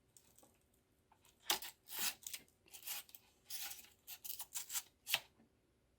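Telescopic monopod being extended by hand: a run of short scraping and clicking strokes as the leg sections slide out and lock, starting about a second and a half in.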